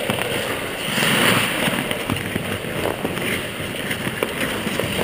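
Hockey skate blades scraping and carving on rink ice, with a steady rush of wind over the moving camera's microphone and scattered light clicks and taps.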